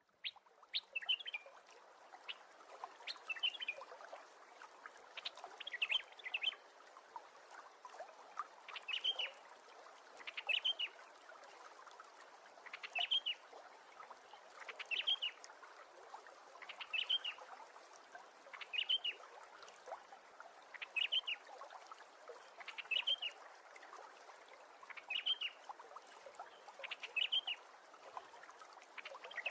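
A bird chirping, a short arched call of a few notes repeated about every two seconds, over a faint steady background hiss.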